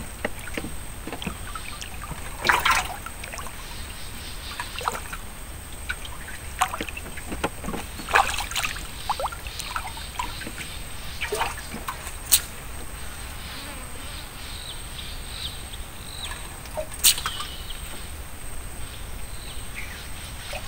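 Paddle strokes beside a small wooden boat: irregular splashes and trickling drips of water. Two sharp knocks, the loudest sounds, come about twelve and seventeen seconds in.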